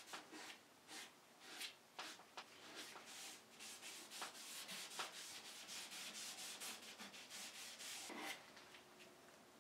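Faint rubbing of a gloved hand wiping walnut gel stain onto turned wooden legs: a run of irregular hissing strokes that ease off near the end.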